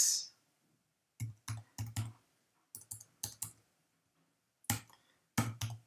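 Typing on a computer keyboard: about a dozen separate keystrokes in short, irregular groups as a question is typed into a form.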